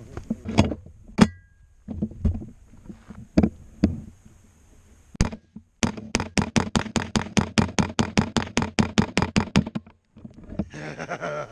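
AR-15 with a CMMG .22 Long Rifle conversion kit firing: a few single shots, one followed by a brief metallic ring, then a fast string of about thirty evenly spaced shots at roughly seven a second lasting about four seconds.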